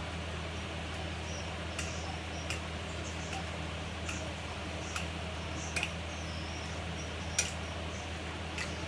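An induction hob running under a heating wok with a steady low hum, with light sharp ticks coming every second or so at uneven intervals.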